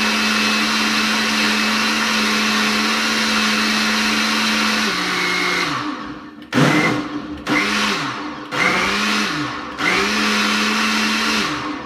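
Countertop blender motor puréeing thick pumpkin soup: it runs steadily for about six seconds, then is switched off and on four times in quick pulses, its pitch swooping up and down with each restart, and winds down near the end.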